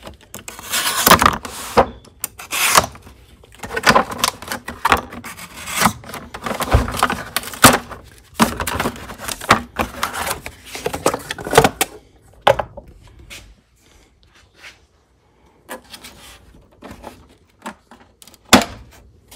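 Cardboard packaging rubbing and scraping in irregular bursts as a plastic tool case is worked out of its box. The handling turns much quieter for the last several seconds, with one sharp knock near the end.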